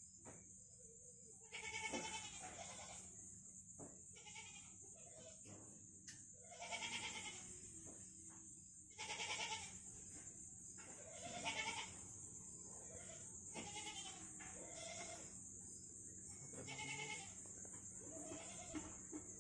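Goats bleating in the background, several separate calls about two seconds apart, over a steady high-pitched hiss.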